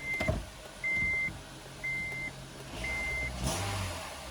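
Car's dashboard warning chime beeping, a single high tone about once a second, four beeps before it stops, over a faint low rumble.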